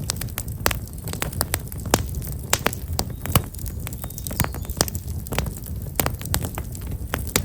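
Black locust firewood burning in an open fire, crackling with frequent irregular sharp snaps and pops over a low, steady rumble of flame.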